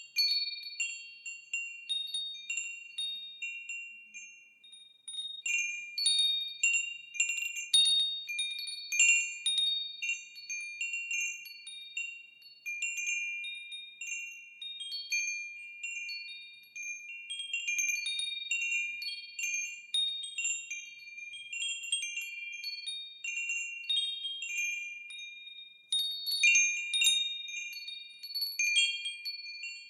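Wind chimes ringing, struck at irregular moments, with several high, clear tones overlapping and fading away. The strikes thin out briefly about five seconds in, then cluster more densely soon after and again near the end.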